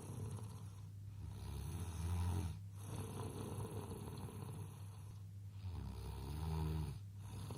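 Baby snoring: a low buzzing rattle with each breath, swelling louder twice, about four seconds apart.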